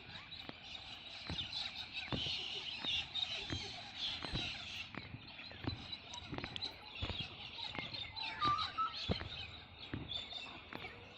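Knuckles cracking over and over, short sharp pops roughly one or two a second, with birds chirping in the background.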